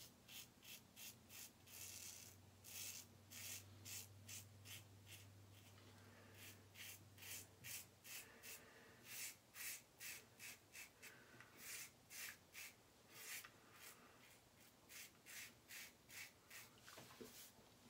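Blackland Sabre razor blade scraping stubble through shaving lather in quick, short strokes, a quiet rasp each time, about one or two a second with a brief lull midway.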